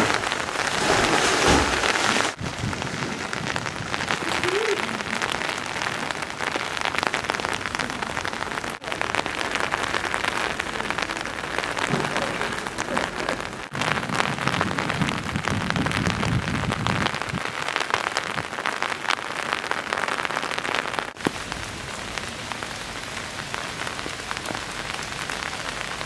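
Heavy rain falling, a dense steady patter of drops, breaking off for an instant at a few cuts between shots.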